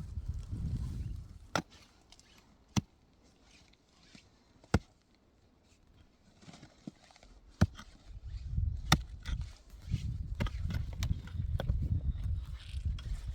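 A series of sharp, single knocks, irregularly spaced a second or more apart, over a low rumbling noise that fills the first second and the last five seconds.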